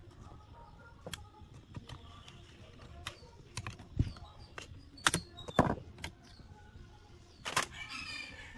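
Metal-on-metal knocks, clicks and a short scrape as a screwdriver pries at the parts of a stripped chainsaw crankcase; the sharpest knocks come about four, five and five and a half seconds in, with the scrape near the end.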